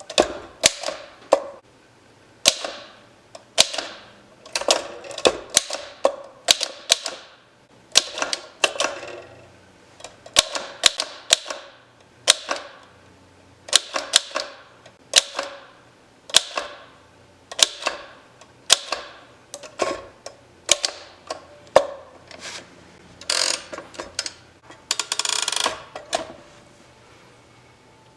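A 1915 French Typo manual typewriter being typed on: sharp typebar strikes in irregular clusters of a few a second, with a longer rattling run near the end.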